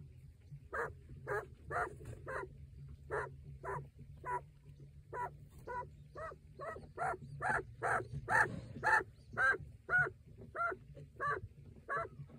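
Broody quail hen growling and grumbling: a steady series of short, pitched calls, about two a second. It is her defensive warning at someone too close while she sits on eggs and guards her newly hatched chick.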